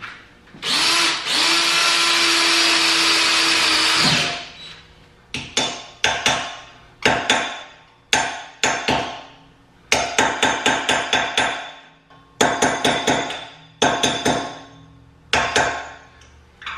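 A power drill runs steadily for about three and a half seconds, drilling out a stripped brake-rotor screw in the wheel hub. It is followed by a string of sharp hammer strikes on metal that ring, coming in quick clusters of several blows.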